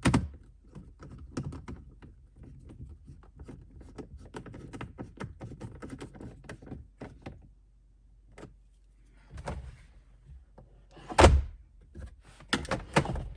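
Plastic dash trim pieces being handled and fitted, with a quick run of clicks and knocks, then a pause, then a few heavier thunks. The loudest thunk comes near the end.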